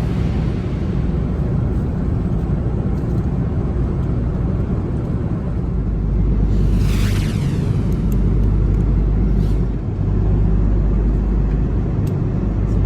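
Airbus A330 cabin noise: a loud, steady low rumble of the engines and airflow, with a brief falling whine about halfway through.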